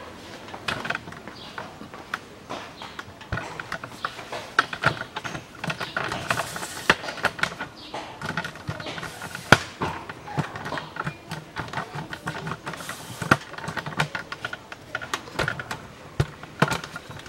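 Irregular metallic clicks and clanks of a wrench working the bolts that hold an ATV's front brake caliper.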